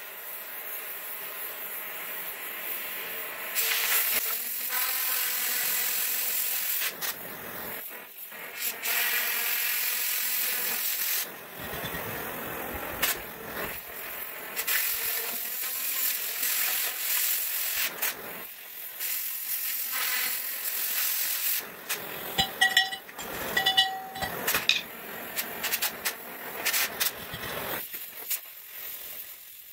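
Plasma cutter cutting old steel drill-stem pipe: a loud hiss that runs in stretches of a few seconds, stopping and starting again, with sharp crackling pops in the later part.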